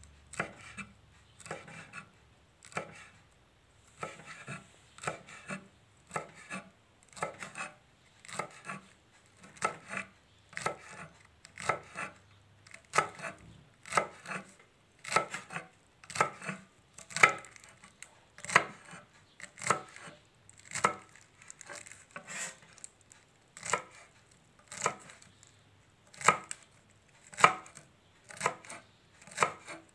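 Sharp knife slicing papaya leaves finely on a cutting board: a steady run of knife strokes knocking on the board, about one or two a second, growing somewhat louder in the second half.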